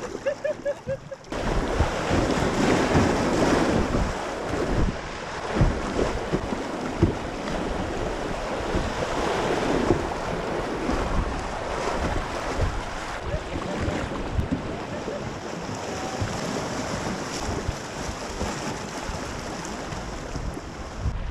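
Rushing river water around a kayak, with wind buffeting the camera's microphone in low, uneven thumps. It starts suddenly about a second in and then holds steady.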